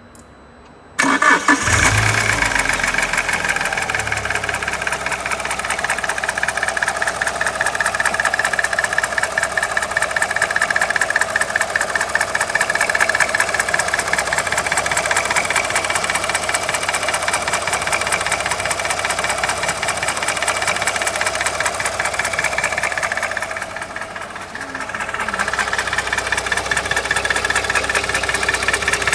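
Alfa Romeo 147 Twin Spark four-cylinder engine starting about a second in, then idling with a loud, fast rattling clatter that seems to come from the top of the engine. The noise can pass for a failed crankshaft bearing, but the owner finds the actual fault minor.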